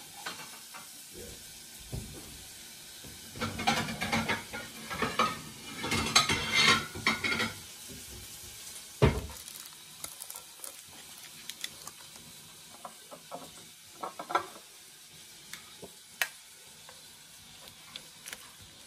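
Metal tongs scraping and clinking against a metal roasting pan while roasted Cornish hens are lifted out of their juices, with a soft sizzle from the hot pan. The scraping is busiest a few seconds in, there is a single dull knock about nine seconds in, then only light clicks.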